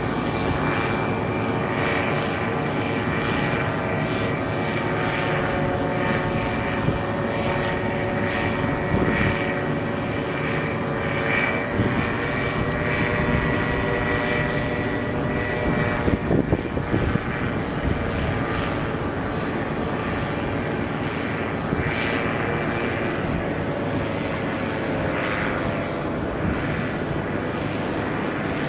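Paramotor engine and propeller droning steadily overhead as the powered paraglider flies, its pitch shifting slightly near the end. A few brief knocks are heard around the middle.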